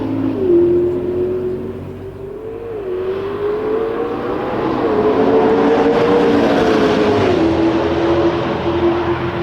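McLaren P1's twin-turbo V8 running hard on track, its pitch climbing and then dropping sharply about three times. The sound grows louder through the middle.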